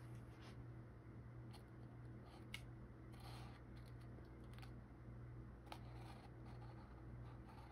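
Faint strokes of a paintbrush on canvas, soft scratchy dabs, with two small clicks, over a low steady hum.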